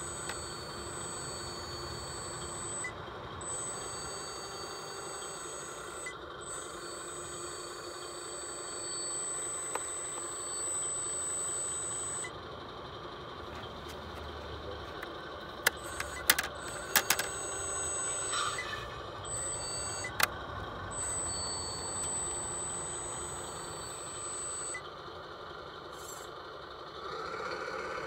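Radio-controlled 6x6 model truck running with a steady vehicle-like sound. A cluster of sharp clicks comes about two-thirds of the way through.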